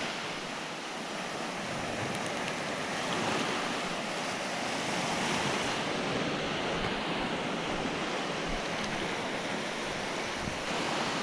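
Surf washing onto the beach in a steady, rushing wash that swells and eases slightly, with wind on the microphone.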